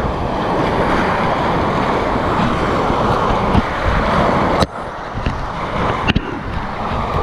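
Whitewater rapids rushing and splashing around a kayak as it runs through the waves, a dense steady wash of water noise. A sharp knock about four and a half seconds in, after which the rush is a little quieter.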